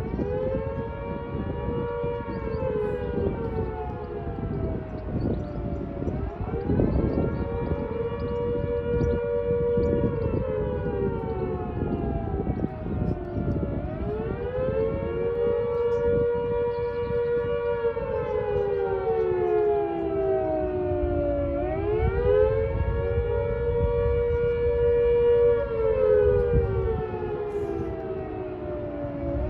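Dual-tone outdoor warning siren sounding in a weekly test: two tones together in a slow wail, each cycle rising, holding high for a few seconds, then falling, about four cycles in all.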